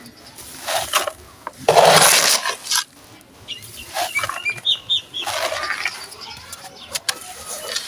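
Dry sand-cement chunks being crumbled and scraped: several gritty crunching bursts, the loudest about two seconds in.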